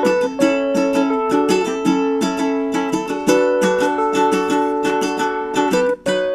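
Instrumental music on a plucked string instrument, playing a steady run of picked notes, with a brief break about six seconds in.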